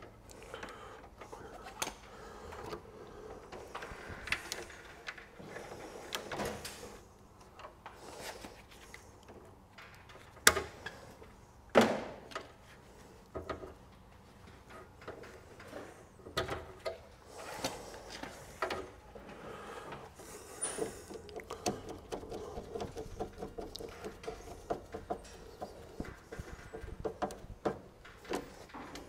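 Hand work on a distribution board: PVC single cables rustling as they are bent and dressed into place, and tools clicking and tapping against the plastic breakers and terminals, with two sharp clicks about a third of the way through.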